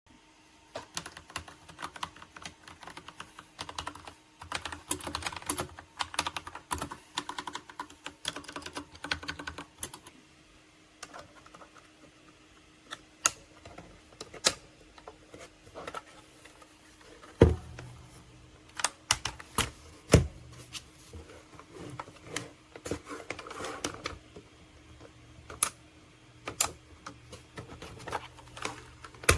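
Typing on a MageGee 75% mechanical keyboard with red switches: quick bursts of key clicks, then slower, separate keystrokes with a few louder clacks.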